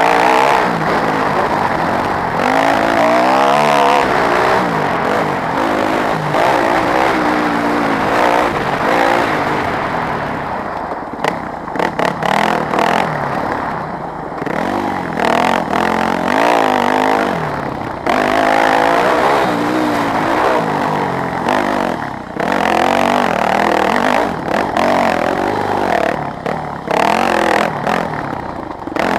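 Yamaha WR250F dirt bike's four-stroke single-cylinder engine being ridden hard off-road, revving up and down through the gears. The throttle snaps shut and reopens several times in the middle and near the end, with knocks and rattles from the bike.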